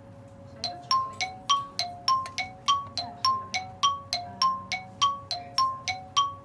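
Added sound-effect music: bright ringing mallet-like notes in a quick repeating two-note pattern, about three to four notes a second, starting about half a second in.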